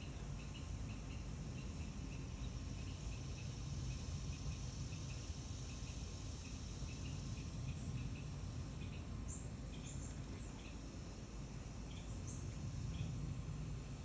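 Summer insect chorus: a steady high hiss with a rhythmic, evenly repeated chirping of crickets, two or three chirps a second. A few short, sharp higher chips stand out about two-thirds of the way through and again near the end.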